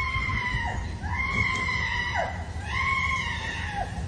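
A person screaming in long, high held cries, one about every second and a half, each dropping in pitch at its end.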